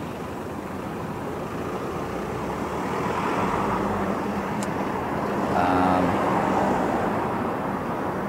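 Street traffic: a steady hiss of tyres and engine noise that swells as a vehicle approaches, peaks about six seconds in, then eases off as it passes.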